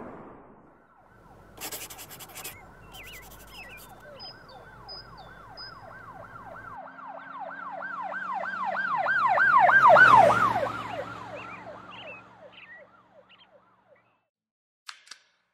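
Emergency vehicle siren in a fast yelp, its pitch sweeping up and down about three times a second. It grows louder to a peak about two-thirds of the way through, then fades away as it passes.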